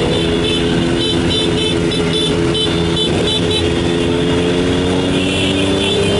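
Motorcycle engines running, their pitch rising slowly, with a quick run of short high-pitched beeps between about one and four seconds in.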